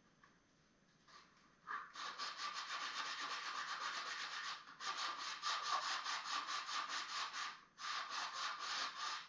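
Hand sanding an old wooden fireplace mantle with sandpaper to take off the old paint: quick, even back-and-forth rasping strokes. They start about two seconds in and come in three runs, with two short pauses.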